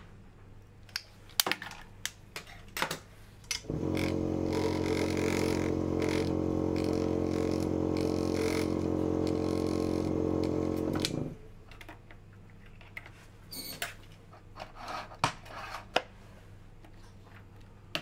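Benchtop vortex mixer running, mixing a microcentrifuge tube of spore-suspension dilution held on its cup: a steady motor hum with a buzz that starts about four seconds in and stops about eleven seconds in. Scattered light plastic clicks come before and after it.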